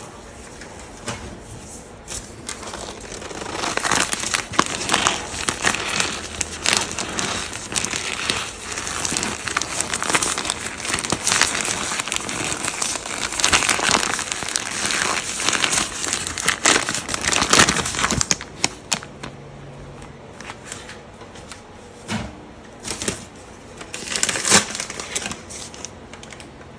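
Cornstarch squeezed and crumbled in a hand and dropped onto a powder pile: a dense crunchy crackling from about four seconds in until about eighteen seconds, then a few short crunches near the end.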